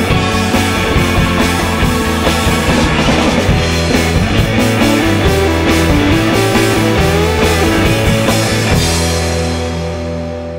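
Rock band music with a drum kit playing hard. Near the end the drums stop and a final held chord rings out and fades away.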